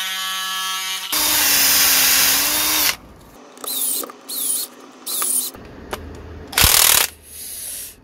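Power tools in a quick run of short clips: an oscillating multi-tool running steadily, then loudly cutting into a plastic drill-battery case from about one second in to three seconds. Then three short whirring runs of an electric screwdriver on the battery pack's screws, and two more loud bursts of tool noise near the end.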